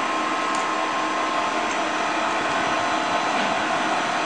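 Dainichi CNC lathe running steadily: a constant machine whine made of several steady tones over an even mechanical hum.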